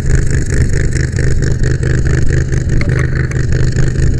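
A brush fire truck's engine or pump motor running steadily at close range.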